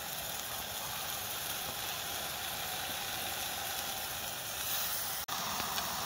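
Lamb and mint kebabs sizzling steadily in a hot frying pan, with a momentary break about five seconds in.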